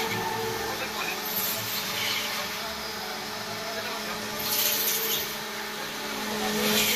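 Electric wood lathe running with a steady motor hum while a hand-held turning tool cuts the spinning log. The cutting gives hissing surges about a second and a half in and again, loudest, near five seconds.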